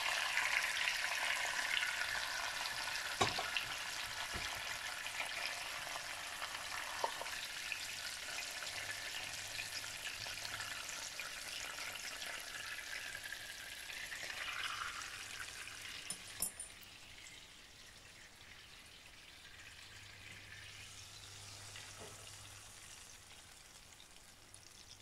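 Chicken pieces sizzling in hot oil and lemon juice in a nonstick frying pan, the sizzle slowly dying down. A few sharp clicks of a fork against the pan and plate as the pieces are lifted out.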